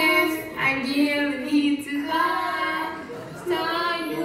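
A high voice singing a slow melody, with long held notes and short breaks between phrases.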